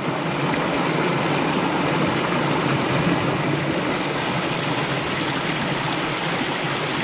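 Mountain stream rushing over rocks, a steady, even water noise.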